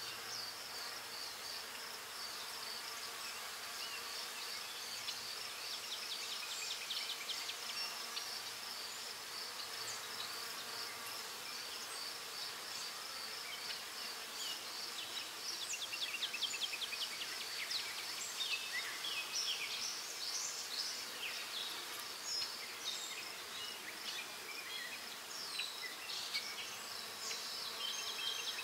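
Graphite pencil scratching on paper in runs of short, quick shading strokes, thickest in the middle and later part. A steady high-pitched pulsing trill sounds underneath throughout.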